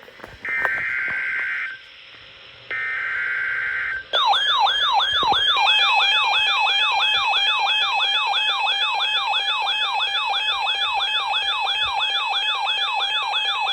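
Emergency Alert System data header: two bursts of about a second each of screechy digital tones. About four seconds in, a loud alert tone starts, made of rapidly repeating pitch sweeps, about three a second, with a steady tone joining underneath.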